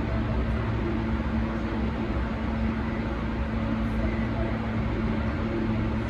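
Steady ambient noise on an open-air metro station platform: a low rumble with a constant low hum running under it.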